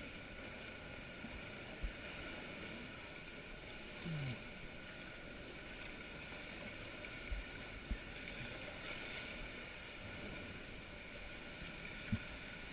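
Kayak being paddled through a sea cave: a steady wash of water sloshing and lapping around the hull, with a few dull knocks scattered through it.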